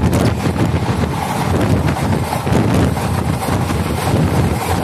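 A moving passenger train's steady running rumble, with wind buffeting the microphone at the open door or window of the coach.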